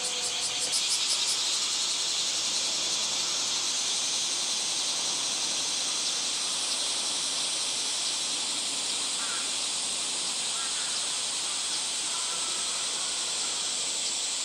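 Steady high-pitched chorus of summer cicadas, with a few faint short chirps in the second half.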